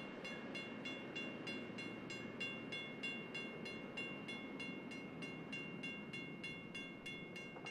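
Railroad grade-crossing bell ringing steadily, about three strikes a second, over the low rumble of a departing freight train's cars.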